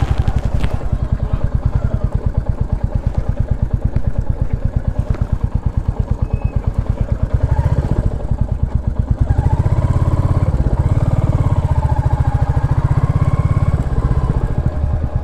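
Royal Enfield Classic 350's single-cylinder engine running at low speed with an even, rapid thump, getting louder from about halfway through.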